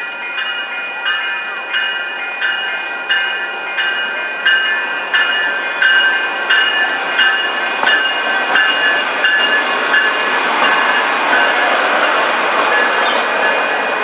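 Amtrak Pacific Surfliner passenger train passing, led by a Siemens SC-44 Charger diesel-electric locomotive, with a warning bell ringing about three strikes every two seconds, loudest as the locomotive draws level. From about the middle on, the rolling noise of the passenger cars grows under the bell.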